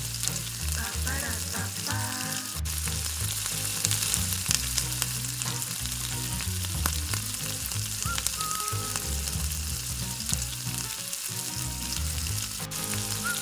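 Sliced onions sizzling and crackling steadily in hot oil in an aluminium pot, stirred now and then with a metal spoon. They are being sautéed soft, not browned.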